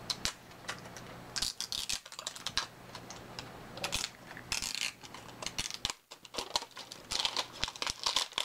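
Fingers picking and peeling at the plastic wrapping on a small cardboard blind-box toy package, giving irregular small scratches, clicks and crinkles.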